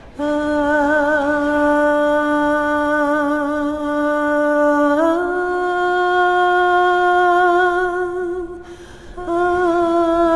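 A woman's voice singing a cappella, wordless and drawn out: one long note with a slight vibrato, then a step up to a higher note held about three seconds, a short breath, and the higher note taken up again near the end.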